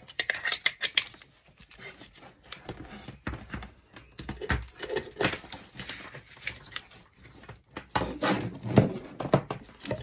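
Irregular plastic clicks, knocks and rustling as a light switch's plastic cover plate is pressed onto the switch and the plastic fittings and cables are handled on a desk.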